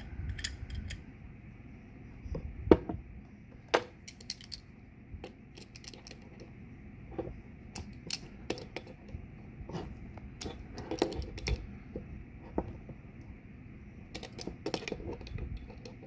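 Two adjustable wrenches clinking and tapping against each other and a plated brass ball valve fitting as they are set on and a threaded fitting is tightened: scattered metal clicks, the sharpest a few seconds in.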